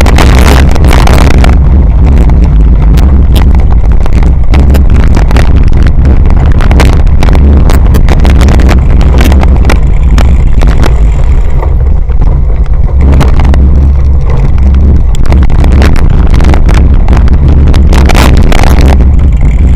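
Wind buffeting and jolting of a camera mounted on a cyclocross bike riding over rough dirt and grass: a constant loud low rumble with many sharp knocks and clatters from the bumpy ground.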